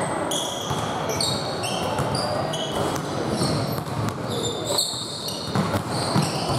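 Basketball game on a hardwood gym floor: sneakers squeak in many short, high chirps as players cut and defend, with a basketball bouncing now and then.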